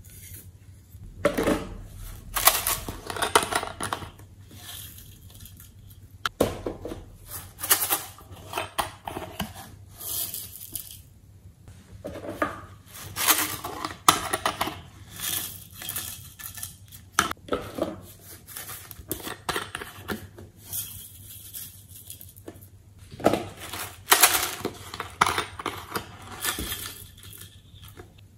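Irregular clattering and rattling as small plastic containers of glitter and sequins are shaken and tipped over a glass dish of slime, with sharp clicks as containers are handled and set down on a hard table.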